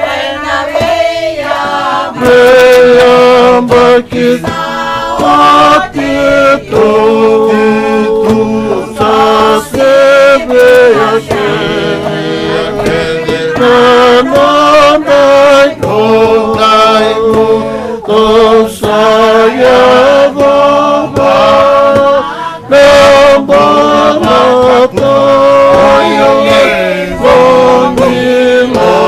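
A mixed group of men and women singing a Fijian song together in several-part harmony, in long held phrases with brief breaths between them.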